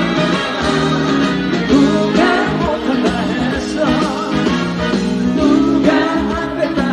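Trot song music played through the stage sound system: an instrumental stretch where a wavering lead melody runs over steady band accompaniment.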